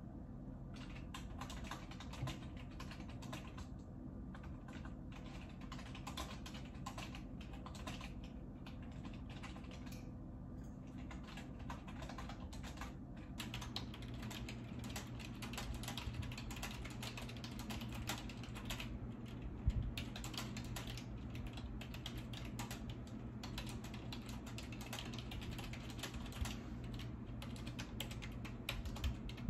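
Typing on a computer keyboard: a long run of quick, irregular key clicks, over a low steady hum that gets louder about halfway through.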